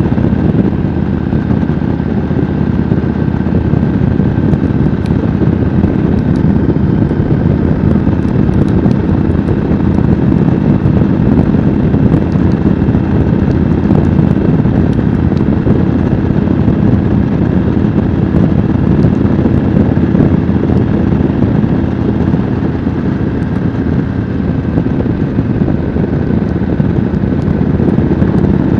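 Yamaha Road Star V-twin cruiser motorcycle running steadily while cruising along a road, its engine note holding an even pitch throughout.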